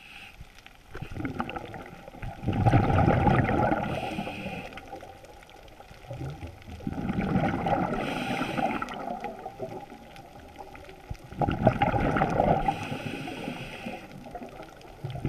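Diver breathing through a scuba regulator underwater: three long gurgling bursts of exhaled bubbles, about every four to five seconds, with a quieter hiss of inhalation between them.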